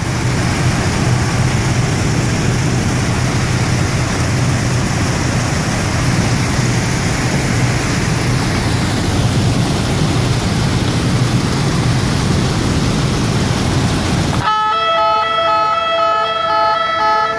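Recycling ballast washing plant of a ballast-cleaning train running with a loud, steady rush and low hum. About fourteen seconds in it breaks off, and a track-worker warning system's horn sounds a multi-tone signal for about three seconds, warning workers of a train approaching on the adjacent track.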